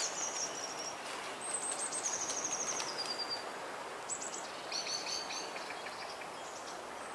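Small songbirds singing in short, high trilled phrases, one of them stepping down in pitch in two or three stages, over a steady background hiss.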